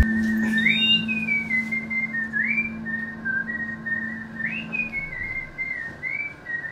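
Whistling of a slow tune: the pitch swoops up and steps back down in phrases about every two seconds, over a low steady hum that stops about five seconds in.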